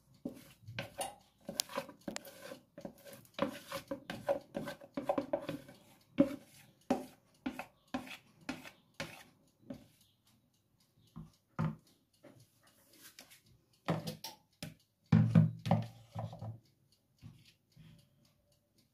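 Plastic mixing bowls knocking and scraping together as sour cream and egg yolks are tipped from one into the other: a quick run of clicks and taps through the first half, then a few separate louder knocks.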